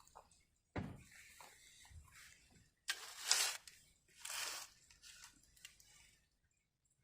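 Hands and tools working garden soil: a soft thump about a second in, then two scraping swishes of dirt around three and four seconds, with faint rustling between.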